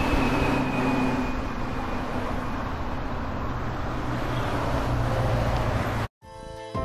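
Steady outdoor vehicle noise, a car engine running with a low hum. It cuts off suddenly about six seconds in.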